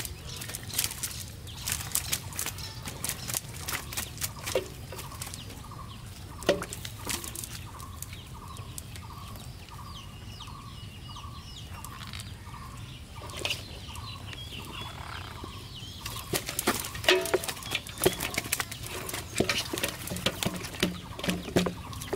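Handling of a cast net and the fish caught in it: scattered rustles and sharp clicks, denser in the first third and the last third. In the middle a bird gives a short call over and over, about twice a second.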